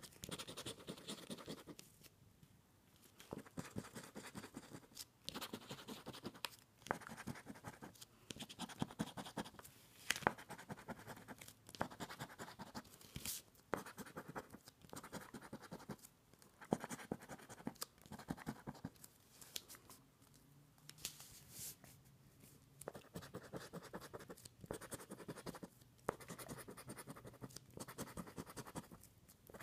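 Scratching the coating off a $20 Deluxe 7's Playbook lottery scratch-off ticket, in runs of rapid strokes broken by brief pauses.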